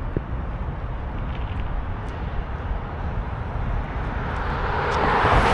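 Steady low road and engine rumble of a car being driven, with a rush of noise that swells from about four seconds in and is loudest near the end.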